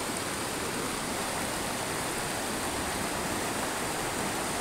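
River rapids rushing steadily as white water pours over rocks.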